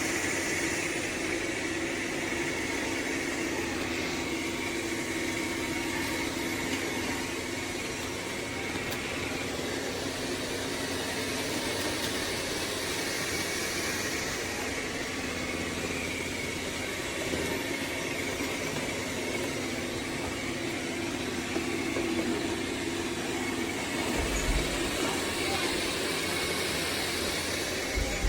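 Dreame L40 Ultra robot vacuum running: a steady whir from its suction fan and brushes, with a low hum and a higher whine, and a couple of brief low bumps near the end.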